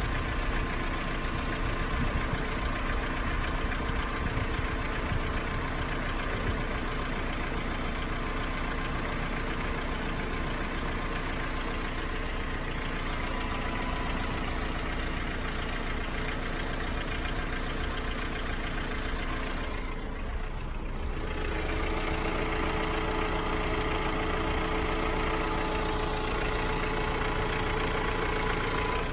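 Hyundai/Kia G4KE 2.4-litre four-cylinder engine idling with a knock. The owner hears the knock only when the engine is cold; it goes away once warm and is absent under load. About two-thirds of the way through, the sound briefly drops and its tone changes.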